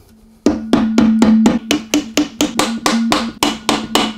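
A hammer tapping steadily on the crankcase halves of a two-valve Ducati engine, about four blows a second starting about half a second in, to break the instant-gasket sealant and split the cases apart.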